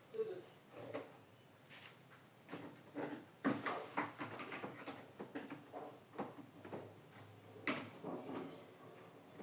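A portable fan being handled during cleaning: a run of clicks and knocks, busiest around the middle, with one sharp click near the end.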